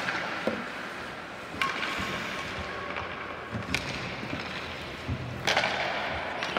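Ice hockey play: several sharp clacks of sticks striking the puck and each other, with the hiss of skate blades scraping the ice. The loudest scrape comes about five and a half seconds in.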